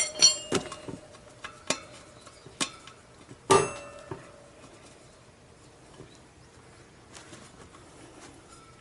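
Sharp metallic clinks with a short ring from a spoked motorcycle wheel as its new front tyre is handled on the rim, loudest about three and a half seconds in, then only faint small taps.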